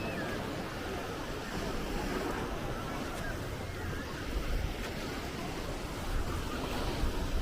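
Sea surf washing on the shore, heard as a steady rushing noise, with wind buffeting the microphone in low gusts.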